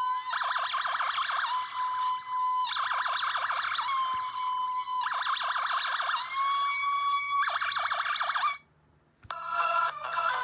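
LOL Surprise Super Sonix Fame Queen toy keytar playing an electronic siren-like sound effect through its small speaker: a held beeping tone alternates with fast warbling, four times over. It cuts off suddenly, and after a short pause a bright electronic tune starts near the end.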